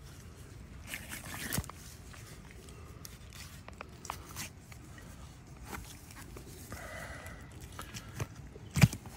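Hunting knife slicing and tissue tearing as a roe deer's throat and neck are opened for field dressing, with scattered wet clicks and rustles of handling. A sharp knock about a second and a half in and a louder one near the end.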